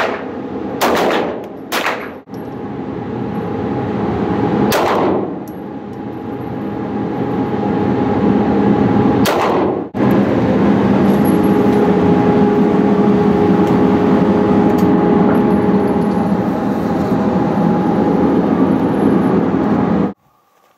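Canik TP9 9mm pistol fired five times with a ringing echo after each shot: three shots about a second apart at the start, then single shots about five and about nine seconds in. Between the shots there is a loud steady hum, which cuts off abruptly near the end.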